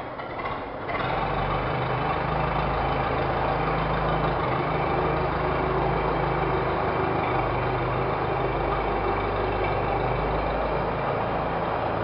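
A large engine running steadily with a low drone, coming in sharply about a second in.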